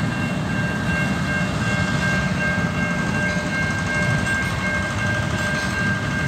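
Railway wagons rolling slowly over a level crossing with a steady low rumble. Over it, a steady high ringing from the level-crossing bells, which stay on while the boom gates are down.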